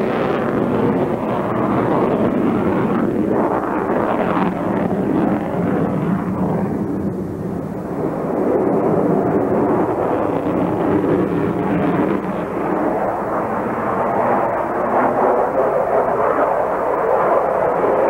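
Jet noise from a Sukhoi Su-27's twin AL-31F afterburning turbofans as it flies a display overhead: a loud, steady rushing sound that eases off briefly about seven seconds in and then swells again.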